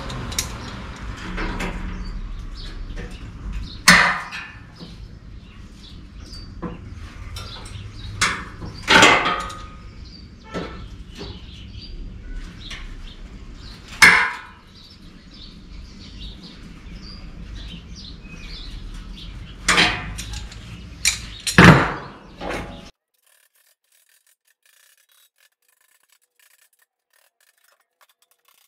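Hand tools, vice grips among them, working the sheet steel of a 1951 Chevrolet Fleetline inner fender: scraping and rubbing against the panel, broken by sharp metal knocks, several of them close together late on. The sound cuts off to silence near the end.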